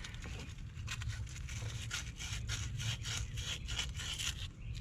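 Very fine sandpaper rubbed back and forth on a car battery cable terminal to clean off corrosion, in quick even strokes of about three a second.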